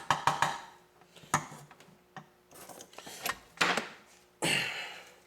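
A handful of sharp knocks and clatters of small tools and wire being handled on a hard work surface, with a short rustling hiss near the end.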